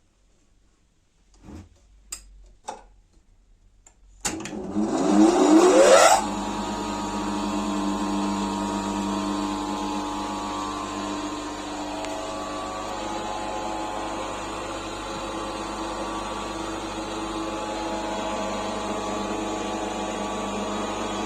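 A restored Chelyabinsk bench grinder switched on: after a few light clicks, its electric motor spins up with a rising whine over about two seconds, then runs steadily at full speed.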